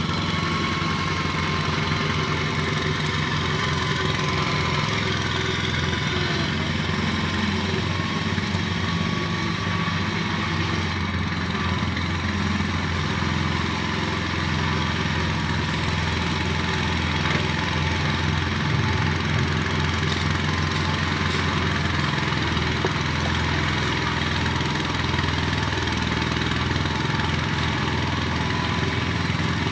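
An engine running steadily at one speed, with no change in pitch or level.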